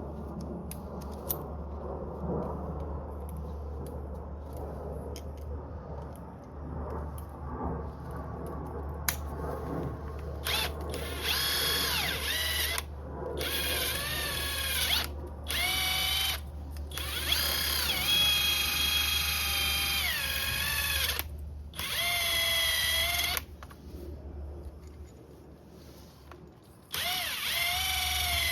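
Light clatter of parts and tools being handled, then from about nine seconds in a power tool's motor whirring in about six bursts of one to four seconds each, its pitch rising and falling as the trigger is squeezed and eased, as when bolts are run in or out during a brake job.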